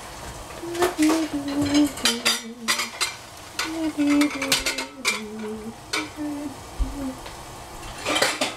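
Metal utensils and pots clinking and knocking in a quick, irregular series of clatters, as in kitchen clean-up.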